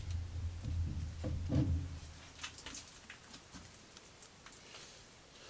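Steel chuck backplate handled against the lathe's threaded spindle nose: low rubbing and knocks of metal on metal for about two seconds, then only a few faint light ticks.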